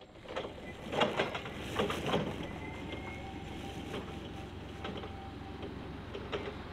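Linde E16L-02 electric forklift driving over block paving: a series of clattering knocks, bunched in the first two seconds and again once or twice near the end, over a steady low noise.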